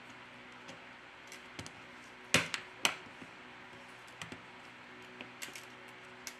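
Plastic middle frame of a Samsung J3 (2016) being pressed down onto the phone, its clips snapping into place: scattered small clicks, with two louder clicks close together about halfway through.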